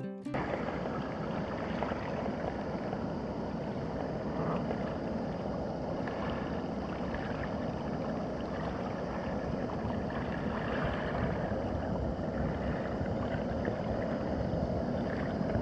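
Steady seashore ambience: a continuous rushing wash of water and wind, with no distinct events.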